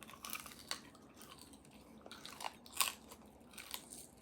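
Close-miked eating sounds: biting and chewing at an air-fried marrow bone, with a string of short, irregular wet clicks and smacks, the loudest about three quarters of the way through.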